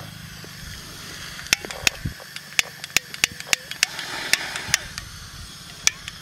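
About a dozen sharp, irregular clicks and crackles from a handheld butane torch held to a pile of dry twigs, starting about a second and a half in, over a faint low hum.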